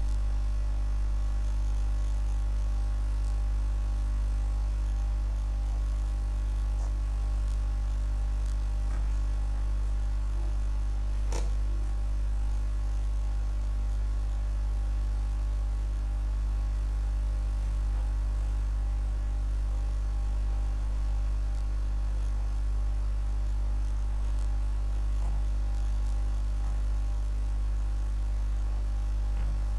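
Steady low electrical hum, mains hum picked up by the recording, with a few fixed higher tones over it. A single sharp click comes about eleven seconds in.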